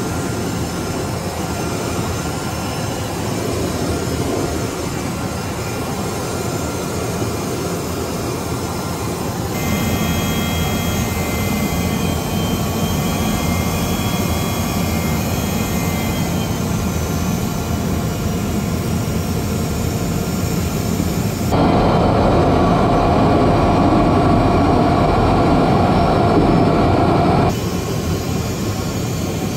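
Jet aircraft in flight, heard from the chase plane: steady engine noise and rushing air. The sound changes abruptly at cuts, with a louder stretch lasting about six seconds from roughly two-thirds of the way in.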